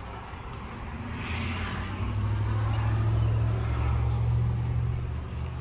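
A motor vehicle's engine running with a low, steady hum that grows louder about two seconds in.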